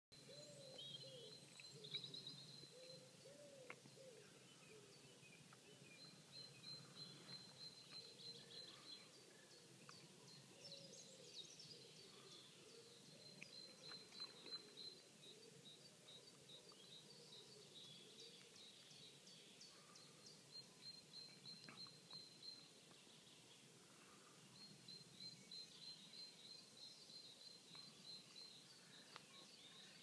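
Faint pre-dawn chorus of several songbirds: one bird sings long, rapid, high trills, repeated in runs through the clip, while others give lower whistled, wavering phrases now and then.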